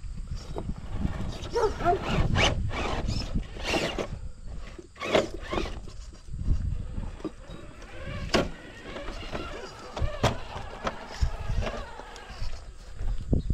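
RC rock crawlers' Hobbywing Fusion SE 1800 brushless motors whining in short spurts as the trucks crawl, over a low rumble, with scattered sharp knocks of the trucks on the terrain.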